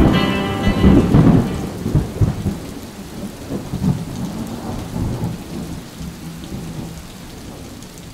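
Thunder rumbling over steady rain, loudest about a second in and fading away gradually.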